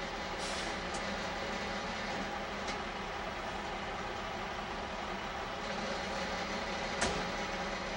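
Tilt-bed lumber truck's engine idling steadily, with a sharp knock about seven seconds in.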